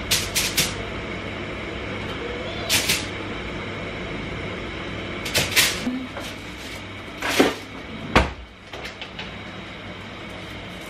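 Kitchen handling sounds: a few sharp clicks and rustles as chicken drumsticks are laid on a foil-lined baking tray, then a heavy clunk about eight seconds in as the oven door is pulled open.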